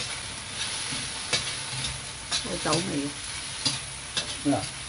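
Diced pork, dried shrimp and mushrooms sizzling in a hot wok while a metal slotted spatula stir-fries them. The spatula gives several sharp clacks and squeaky scrapes against the pan over a steady frying hiss.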